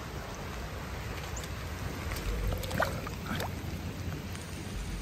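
Steady hiss of rain falling on creek water, with a few small clicks and brief squeaks about halfway through.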